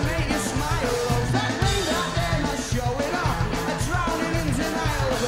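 Rock band playing live: a male lead vocal sung over electric guitars, bass and drums with a steady beat.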